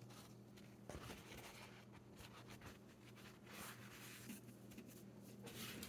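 Faint rustling and soft scrapes of a paper towel and paintbrush being handled and set down on a desk, with a small knock about a second in, over a low steady hum; close to silence.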